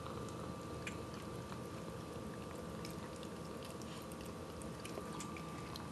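A cat licking peanut butter off a metal spoon: faint, irregular little licking and smacking clicks, over a steady faint hum.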